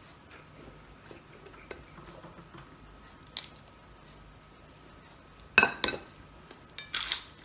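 Crisp fried dried fish being broken apart by hand over a plate: a single click about three and a half seconds in, then short, loud crackles twice near the end.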